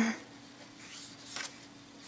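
Pages of a thick paper planner being handled and turned, with a soft paper rustle about one and a half seconds in. A brief sound comes right at the start, and a faint steady low hum runs underneath.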